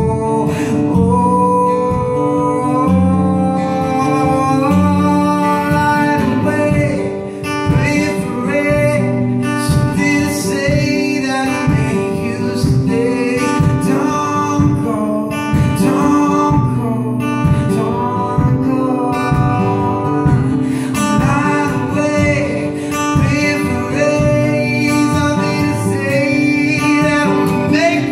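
A man singing while playing an acoustic guitar, performed live.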